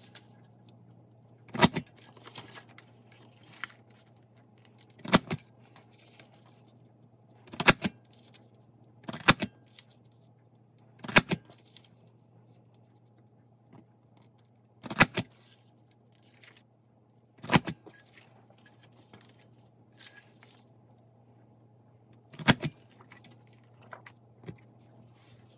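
Handheld border punch snapping down through white cardstock: a sharp clack at irregular intervals of a couple of seconds, eight in all, over a faint steady low hum.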